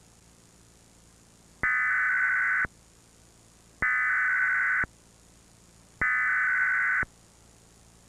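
Emergency Alert System SAME header: three identical bursts of buzzy digital data tones, each about a second long with about a second's pause between them. The coded header opens a required weekly test of the alert system, sent over the cable feed.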